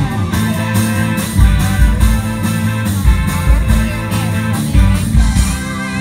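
Live rock band playing: electric guitars over bass and drums with a steady beat.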